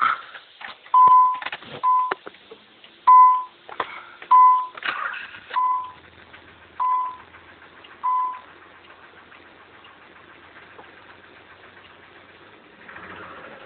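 Seven short electronic beeps of one steady pitch, repeating about once a second and then stopping, with a few clicks and rustles at the start: a car's warning chime before the engine is started.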